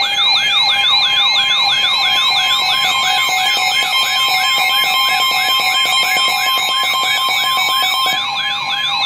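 Electronic siren alert signal sweeping down in pitch over and over, about three times a second, over steady tones. It sounds as part of a broadcast severe-weather alert.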